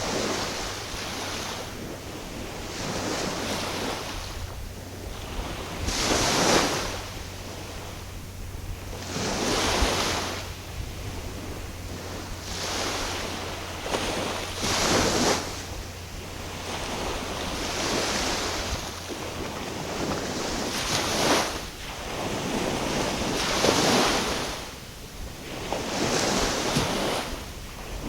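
Small waves washing in and out against the shore in a steady rhythm, one swell every few seconds, with wind buffeting the microphone.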